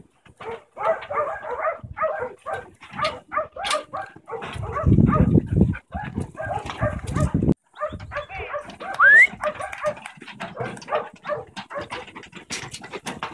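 Working kelpie barking over and over while it backs over sheep packed in a race, with a low rumble for a few seconds in the middle and a short rising squeak about nine seconds in.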